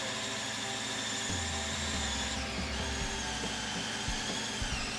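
Electric drill turning a mixing paddle in a plastic bucket, stirring two-part epoxy; the motor runs with a steady high whine that changes pitch about halfway through.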